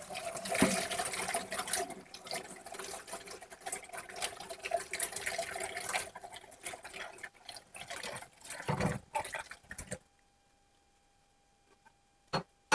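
Water splashing and running in a kitchen sink as soaked raspberries are drained, with small clicks and knocks throughout. It stops about ten seconds in.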